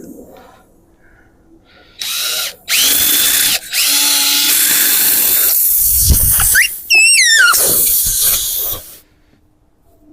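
Power drill spinning a tire-plug reamer in a puncture hole. It runs in several pulls with brief stops, its whine settling after each start. Partway through, the pitch dips and rises as the bit loads in the rubber, cleaning out the hole before the plug goes in.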